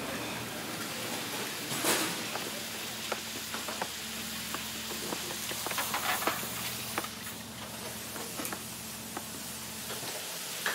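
Restaurant kitchen at work: a steady hum and sizzling hiss under frequent small clicks and clatter of plates and utensils, with a louder clatter about two seconds in and a flurry of clinks around six seconds.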